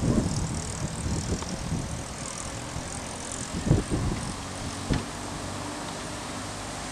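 Distant fireworks going off over the city: a few dull booms, the loudest right at the start, a pair just before four seconds and one near five seconds, over a low continuous rumble, with faint crackling in between.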